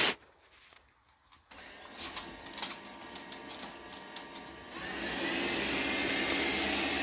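Xiaomi Dreame F9 robot vacuum starting a cleaning run: after a brief quiet it whirrs with a series of clicks, then about five seconds in its motor comes up to full power and runs steadily and loudly.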